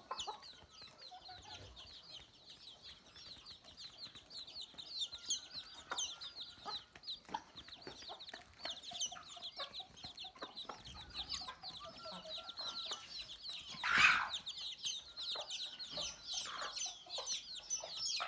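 A flock of chickens calling: a constant chorus of high peeping with scattered lower clucks, and one loud call about three-quarters of the way through.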